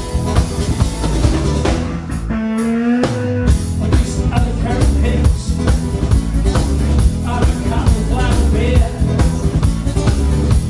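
Live rock band playing: strummed acoustic guitar, electric bass and drum kit. About two seconds in, the bass and drums drop out briefly under one held note, then the full band comes back in.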